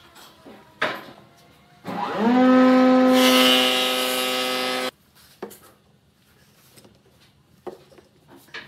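Wooden strips knocking and clacking as they are handled and set into a pipe clamp. About two seconds in, a motor-driven machine starts with a quick rising whine, runs with a steady hum and hiss for about three seconds, and cuts off suddenly.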